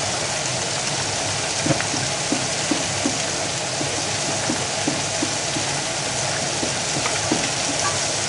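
Meatballs sizzling in butter in a frying pan, a steady hiss. From about two seconds in, a utensil taps lightly against the pan about three times a second as the food is stirred.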